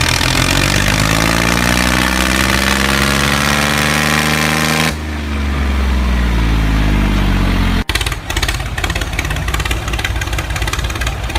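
Engine sound for a toy tractor, revving with a steadily rising pitch for about five seconds, then abruptly dropping in pitch. About eight seconds in it cuts off sharply into a rough, rattling running sound with fine ticking.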